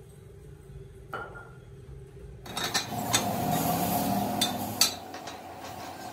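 Metal clinks and knocks from a steel screw-jack tire spreader being handled and set inside a tractor tire's bead: one clink about a second in, then a busier run of sharp clanks from about halfway through.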